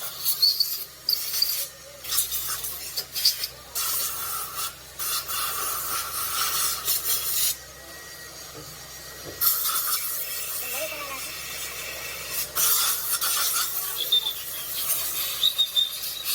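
Rasping, scraping strokes of hand rubbing on metal, as when a hydraulic pump part is cleaned up by hand. The strokes come in stretches with short breaks, and there is a quieter spell about eight seconds in.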